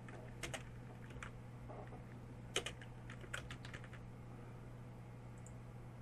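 Computer keyboard keystrokes: a couple of key presses, then a quick run of several near the middle, over a faint steady low hum.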